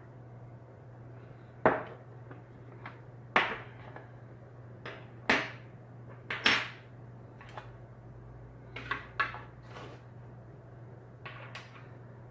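Parts of a hand rifle-reloading kit clacking and knocking as they are taken out of their box and set down: about eight sharp, irregular knocks, over a low steady hum.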